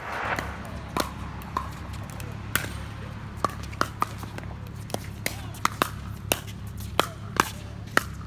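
A pickleball rally: paddles hitting the plastic ball and the ball bouncing on the court, a series of sharp pops that come quicker from about halfway through.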